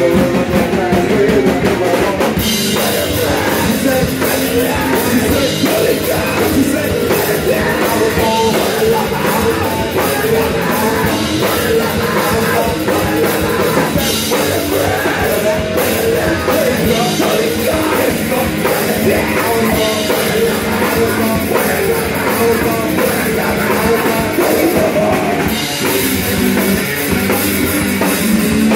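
Punk band playing live: electric guitar, bass and drum kit, with vocals shouted into the microphone.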